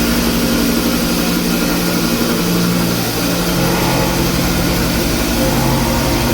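Steady machine-shop noise of CNC machining centres running, a constant mechanical hum and hiss with low tones that shift in pitch a little past halfway through.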